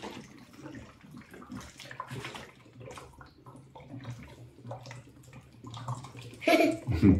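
Water swirling and draining through the neck of a tornado bottle, from the upper plastic bottle into the lower one as a vortex. It runs as a steady, uneven trickle.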